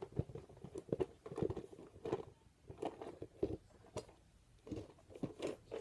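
Irregular light taps, knocks and rustles as a cardboard box is opened and a plastic tub is lifted out of it.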